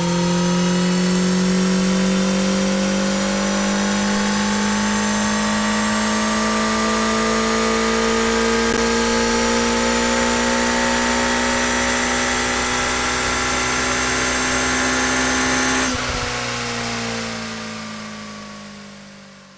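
Suzuki motorcycle engine pulling hard in sixth gear, its pitch climbing slowly and steadily as the bike gains speed. About sixteen seconds in the throttle is closed: the pitch drops and the engine fades away.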